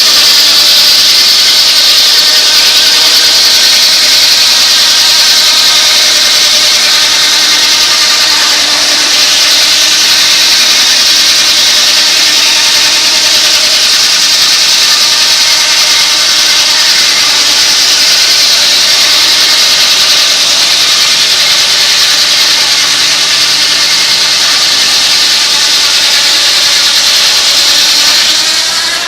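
Large circular sawmill blade cutting through a log for nearly half a minute: a loud, steady, hissing whine. Its pitch sags as the blade takes the cut and climbs again just before the sound stops suddenly as it comes out of the log.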